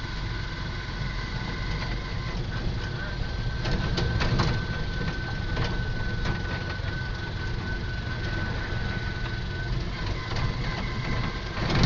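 Moving vehicle heard from inside the cabin: a steady low rumble of engine and road noise. A thin steady high tone runs for several seconds in the middle, and a few short clicks come about four seconds in and again near the end.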